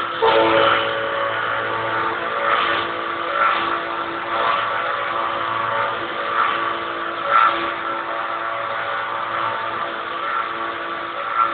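CNC router spindle running with a steady whine, its noise swelling and easing about once a second as it cuts.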